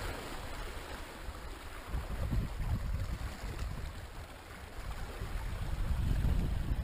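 Sea water washing and lapping against shore rocks, with a low rumble of wind on the microphone that swells near the end.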